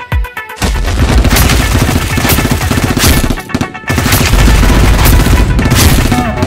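Rapid automatic gunfire sound effects over an action music track. The gunfire comes in about half a second in and breaks off briefly about three and a half seconds in.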